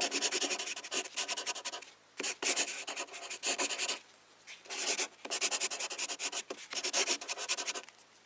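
Pencil writing on paper: runs of quick, scratchy strokes, with a short break about two seconds in and a longer one around four seconds in.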